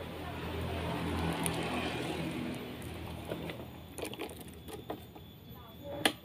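A small motor scooter engine running at a steady low idle, dying away about three seconds in. It is followed by a few light clicks and a sharp knock near the end.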